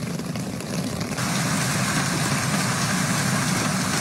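Hailstorm noise picked up by a phone's microphone: wind buffeting the mic over a steady rushing roar, which grows fuller and brighter about a second in.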